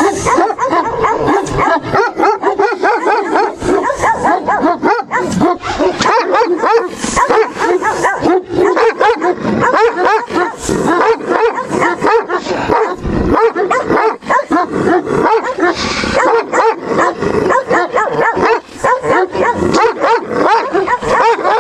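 Central Asian Shepherd Dog (Turkmen Alabai) barking rapidly and without a break, the territorial guarding bark of a livestock guardian dog warning off an intruder.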